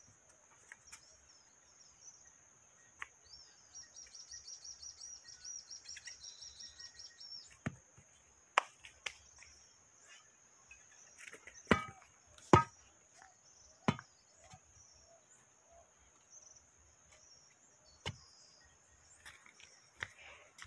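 Rural outdoor ambience: a steady high-pitched insect drone, a fast pulsing chirp for a few seconds near the start, and a handful of sharp knocks, the loudest bunched in the middle with two more near the end.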